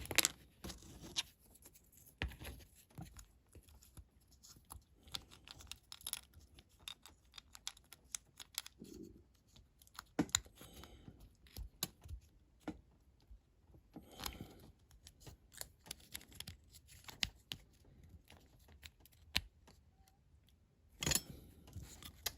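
Irregular light clicks and taps of small parts being handled and fitted by hand as a die-cast toy model car is reassembled, with a denser cluster of clicks near the end.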